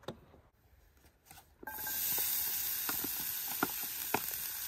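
Diced red onion and tomato sizzling in a cast iron skillet on a portable butane camp stove. The steady sizzle starts suddenly about a second and a half in, after near silence, with a few light clicks.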